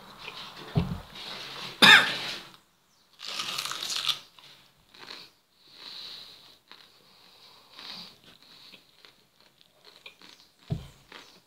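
Someone eating a whole raw onion: crunching bites and chewing, with a loud harsh burst about two seconds in and a low thump near the end.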